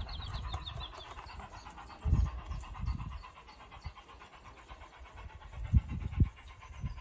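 O gauge model train of the GWR 'Trematon Hall' running along the track, a faint steady hum that fades as the train moves away. Low puffs of noise cut across it, a pair about two seconds in and another pair near the end.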